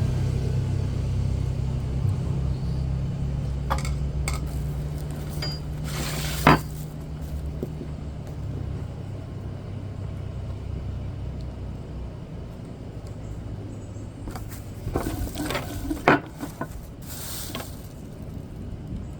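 Low hum of a vehicle engine fading away over the first several seconds. Scattered sharp clinks and knocks follow, the loudest about six and a half seconds in and a cluster around sixteen seconds.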